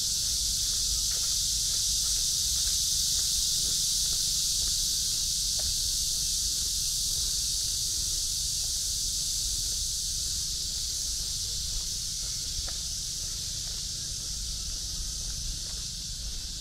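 A steady insect chorus: an even, high-pitched hiss that keeps up throughout, over a low background rumble, with a few faint footsteps.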